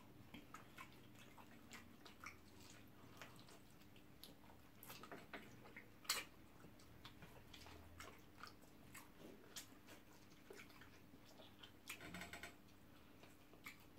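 Faint chewing and mouth noises of two people eating with their hands: scattered soft clicks and smacks, with a sharper click about six seconds in.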